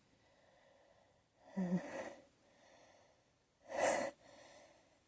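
A person's two sharp breaths in, about a second and a half and four seconds in, the first with a short voiced catch. It is the hitching build-up of a sneeze brought on by dust, which stays stuck.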